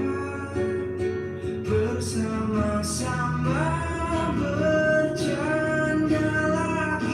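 Pop song playing, with guitar and a held melody line that slides up about halfway through.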